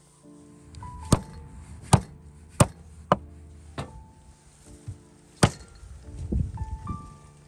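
A cleaver chopping through a plucked goose's wing joints onto a wooden log chopping block: six sharp chops, most in the first four seconds and a last loud one about five and a half seconds in.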